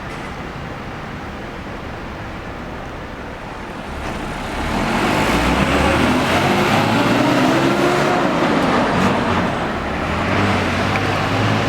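A bus's diesel engine draws near and passes close over steady traffic noise, growing louder about four seconds in, its engine note rising then falling.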